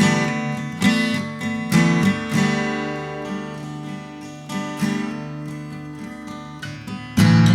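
Acoustic guitar strumming chords in a song's instrumental break, a strum about every second that dies away in the middle, then a loud new chord struck near the end.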